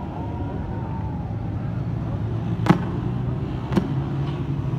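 Two sharp bangs about a second apart, over a steady low rumble of street noise.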